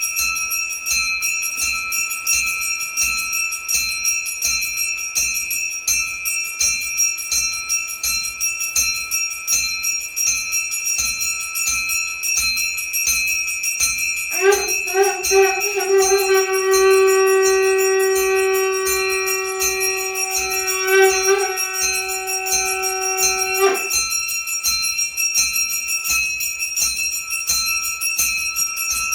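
A metal hand bell rung rapidly and without pause during puja, its strokes coming several times a second. About halfway through, a conch shell is blown in one long steady note for about nine seconds, then stops abruptly.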